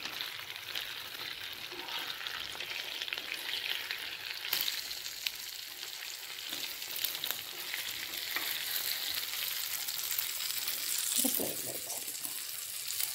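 Stingray fish pieces frying in hot coconut oil in a non-stick pan, a steady sizzle with fine crackling, while a metal spatula moves the pieces about and lifts them out.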